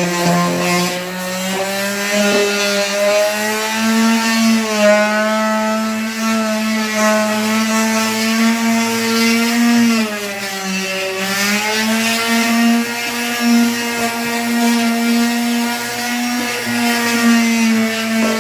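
Handheld electric power tool motor working wood, running at a steady high speed with a dip in pitch about ten seconds in as it comes under load, then picking back up.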